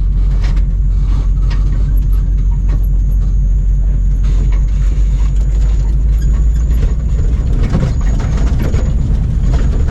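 A vehicle engine running with a steady low rumble, with a few light knocks and rattles on top.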